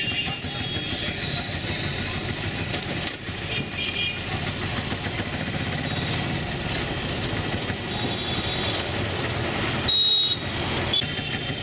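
Auto-rickshaw (tuk-tuk) engine running steadily as it drives through street traffic, with a few short high horn beeps from the traffic, the loudest one near the end.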